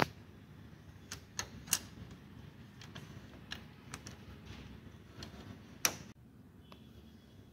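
Plastic parts of a Canon iR2202 copier's drum unit clicking and knocking as its blue handle is gripped and pulled: a scattering of sharp, irregular clicks, the loudest about six seconds in.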